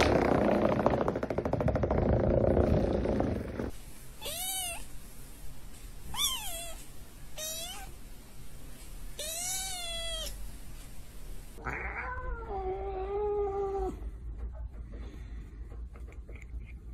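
An electric fan runs with a steady rushing noise for the first few seconds. Then a kitten gives four short, high meows, and later a cat gives one longer, lower meow.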